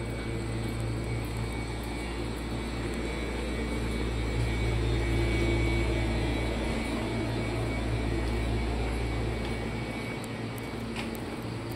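Stationary Nishitetsu electric train humming at the platform with its doors open: the steady low drone of its onboard equipment. The deepest part of the hum drops away near the end.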